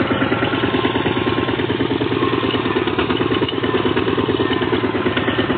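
Two-wheel walking tractor's single-cylinder diesel engine running steadily with a fast, even chugging as it pulls a wooden trailer along the road.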